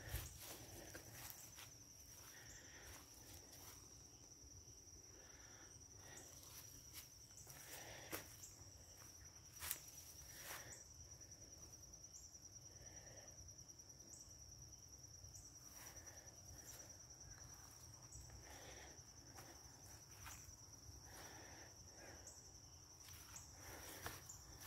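Faint, steady, high-pitched insect trill that runs on without a break. A few soft clicks and rustles sound now and then over it.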